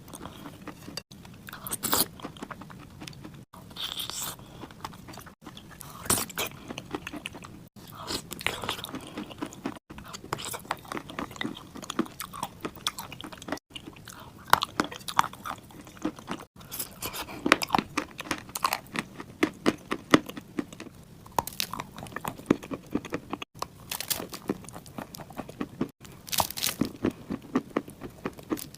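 Close-miked crunching bites and chewing of clay chunks, crunch after crunch with crackly breaking, cut by brief sharp dropouts every few seconds.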